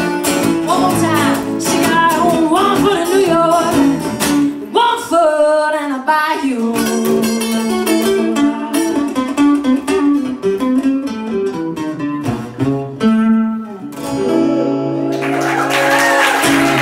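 A woman singing the last phrases of a song to two acoustic guitars. Audience applause breaks out about a second and a half before the end.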